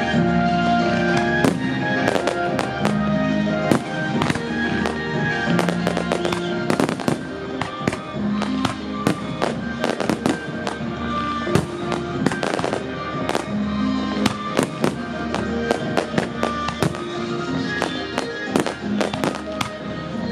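Aerial firework shells bursting in a dense barrage, many sharp bangs several a second, over music with long held notes.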